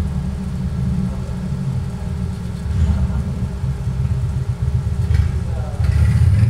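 Low, steady mechanical hum and rumble from a Wurlitzer OMT CD 1015 jukebox's CD-changer mechanism as it loads the selected disc.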